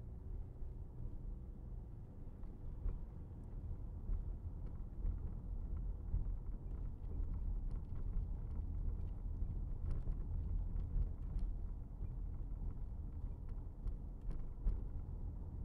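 Car driving at road speed, heard from inside the cabin: a steady low rumble of engine and tyres on the road, with occasional light clicks.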